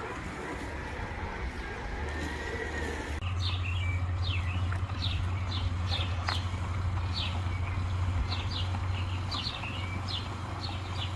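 Birds chirping in short, quickly repeated falling notes from about three seconds in, over a steady low hum.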